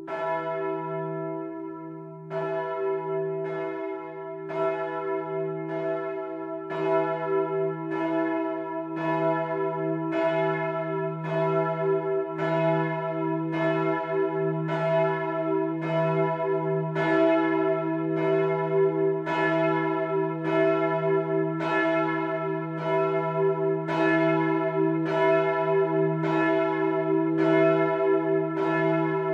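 A large bronze church bell swinging in the belfry of Bremen Cathedral, its clapper striking about three times every two seconds. Each strike rings on over a steady low hum, and the strikes grow louder over the first several seconds as the swing builds.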